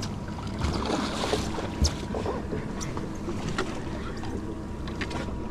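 Steady wind and water noise aboard a boat at sea, under a faint low hum. Scattered sharp clicks and splashes come from a hooked cobia thrashing at the surface beside the boat as it is reeled in, the clearest about two seconds in.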